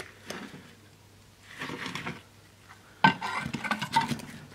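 Ceramic catalyst block being handled in the cut-open steel shell of a catalytic converter: scraping and clinking of ceramic against metal, with a quick run of clicks and scrapes from about three seconds in.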